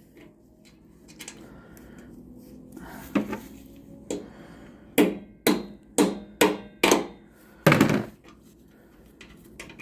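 A series of about eight sharp metal knocks as tools are worked on the bolts of a motorcycle's front wheel, coming about every half second and ending on a heavier knock about eight seconds in.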